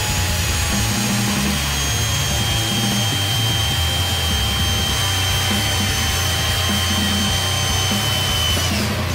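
Corded electric drill boring into a wooden handle, its motor whine steady and sagging slightly in pitch under load, then winding down near the end. Heavy metal music plays underneath.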